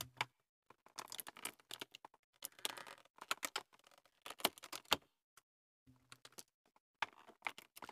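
Small hard-plastic action-figure accessories clicking and tapping as they are picked out of a plastic blister tray and set down on a table: an irregular run of sharp little clicks with short pauses between clusters.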